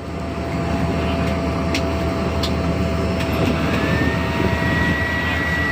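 Small propeller aircraft's engine running, heard from inside the cabin as a loud, steady drone. A higher whine rises about three and a half seconds in and then holds steady.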